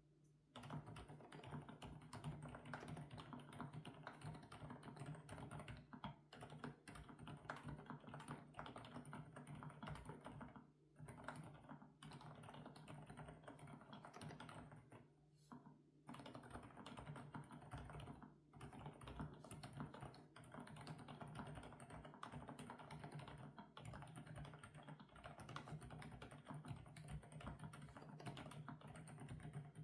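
Continuous typing on an FL-Esports OG98 mechanical keyboard with Kailh Coconut Latte switches: a fast, steady run of keystrokes broken by short pauses a few times. A faint steady hum sits underneath.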